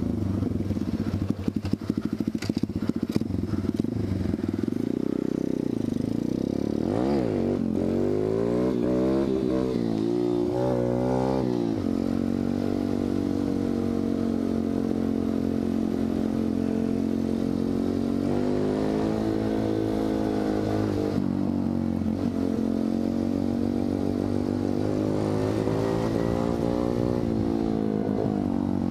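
125cc dirt bike engine under way, revving up and dropping back as it shifts through the gears several times, with the quickest climbs and drops in the first half and steady cruising between them.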